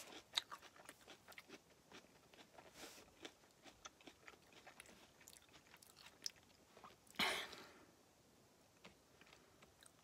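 Faint mouth sounds of a person chewing a cicada together with a mouthful of asparagus: a string of small clicks, with a short rush of breath-like noise about seven seconds in.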